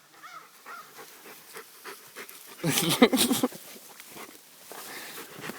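A dog panting and moving through dense, chest-high ferns, with a loud rustling burst lasting about a second from about two and a half seconds in.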